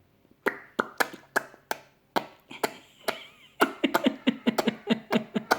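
An 11-month-old baby making a rapid series of sharp popping noises with her mouth, about three or four a second at first, then faster and mixed with a little voice from a few seconds in.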